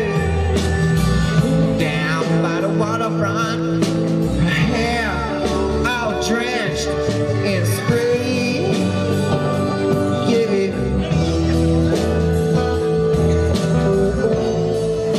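Live rock band playing a song with acoustic and electric guitars, bass, drums and a sung lead vocal.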